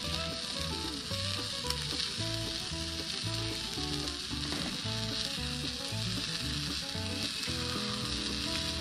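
Eggs frying on a flat-top griddle, a steady sizzle.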